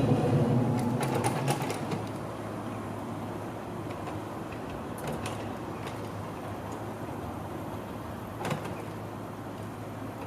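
A Toden Arakawa Line streetcar rumbling away and fading over the first two seconds, with a few sharp clicks as it goes. Then a steady low outdoor hum with an occasional faint click.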